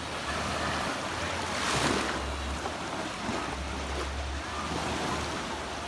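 Baltic Sea surf washing onto a beach, a wave breaking and swelling louder about two seconds in, with low wind rumble on the microphone.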